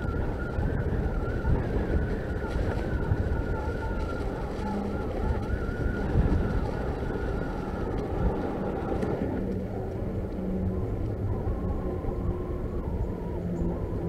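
Norco Fluid FS3 full-suspension mountain bike riding over a leaf-covered dirt trail: a steady rumble of tyres and wind on the camera microphone. About two-thirds of the way through, the sound turns to a smoother, steadier hum as the tyres roll onto a wooden boardwalk.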